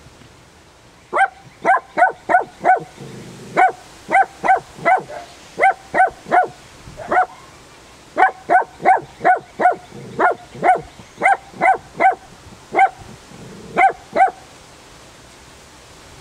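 Miniature dachshund barking repeatedly at a turtle, short barks in quick runs of two to six with brief pauses between.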